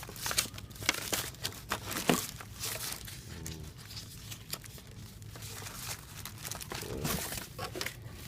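Packaging crinkling and rustling with scattered clicks and crackles as the contents are handled and pulled from a blow dryer box.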